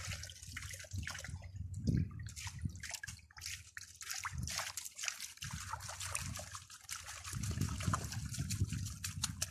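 Water sloshing, splashing and dripping as a green rubber sluice mat from a highbanker is dunked and rinsed in a bucket of water. This washes the concentrate out of the mat during a gold-washing cleanout.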